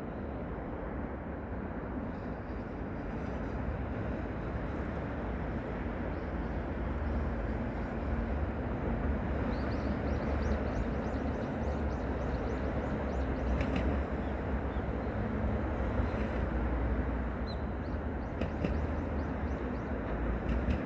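Steady low rumble of environmental background noise, strongest in the deep bass. Faint rapid high ticks appear from about halfway in.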